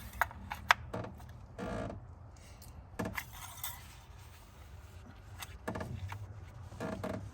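Engine oil dipstick of a 2021 Ford Bronco being pushed into its tube and drawn back out for a level reading: a few short scraping rubs and light clicks, the sharpest one under a second in.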